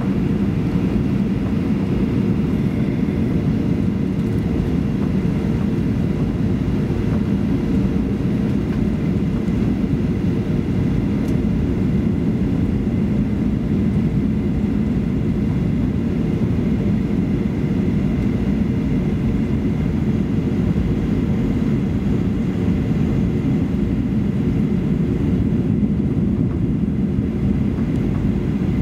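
Steady cabin noise inside a Boeing 737-800 on final approach: the CFM56-7B engines and airflow make an even, low-heavy noise, with a faint thin whine above it.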